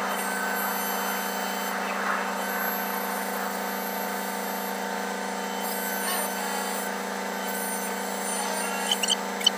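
Steady mechanical hum of an offshore crane's machinery, heard inside the operator's cab, with several pitched tones held level. Three short high chirps sound close together near the end.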